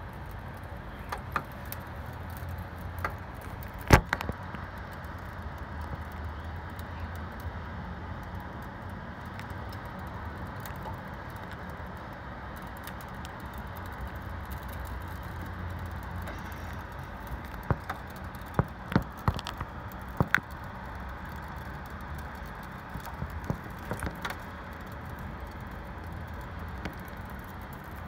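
Ice pellets and freezing rain pattering steadily, with scattered sharp clicks of pellets striking close by: the loudest about four seconds in, a quick cluster a little past the middle, and a few more near the end.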